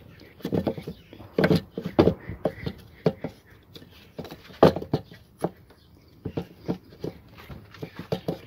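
Irregular clacks and knocks from a VW Golf 4 1.6 throttle body as its plate is pushed open by hand and springs back shut, about a dozen strikes with the loudest a third and a half of the way through.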